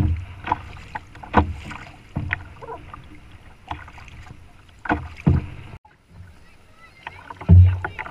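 Choppy water slapping against a canoe's hull in irregular knocks and splashes, over a steady wash of water, with the loudest slap near the end.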